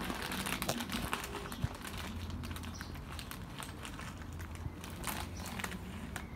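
Quiet outdoor background: scattered small clicks and rustles, likely from the camera being handled, over a steady low hum.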